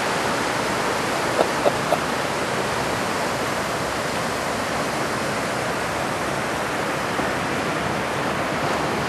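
Ocean surf breaking and washing up the beach, a steady rushing hiss. Three short faint calls come about a second and a half in.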